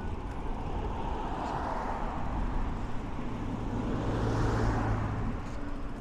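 Road traffic: motor vehicles passing close by, with two swells of engine and tyre noise, one about two seconds in and one about four to five seconds in. A low engine hum is strongest during the second swell.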